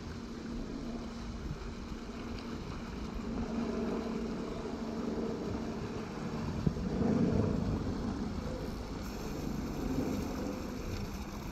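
Muddy water rushing and splashing through a breach in a beaver dam as a rake drags out sticks and mud, with a faint steady low drone underneath. A sharp knock a little before the middle, then the rush swells louder for a moment.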